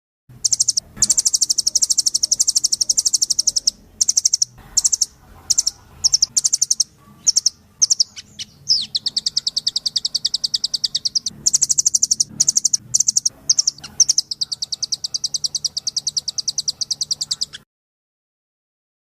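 Songbird singing long, very rapid high trills in several phrases with short breaks, from a recorded masteran track of the kind played to tutor cage songbirds; it starts and cuts off suddenly.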